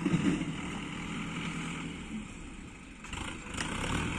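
Diesel farm tractor engine labouring as it hauls a heavily loaded brick trolley, with a loud burst at the start. The engine note falls away a little before three seconds in, then picks up again.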